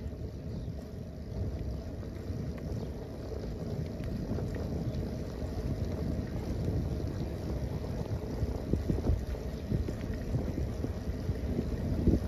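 Wind buffeting the microphone during a bicycle ride, mixed with the tyres rolling over brick pavers: a steady low rumble that slowly grows louder, with gusts near the end.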